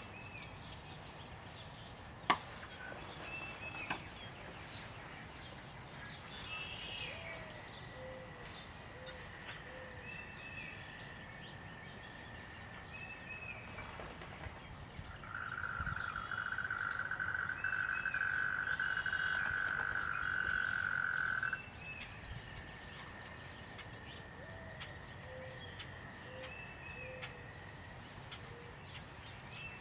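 Pond-side ambience of birds giving short repeated chirps, with a frog's long, even trill starting about halfway through, the loudest sound here, holding for about six seconds and cutting off suddenly. A sharp click sounds near the start.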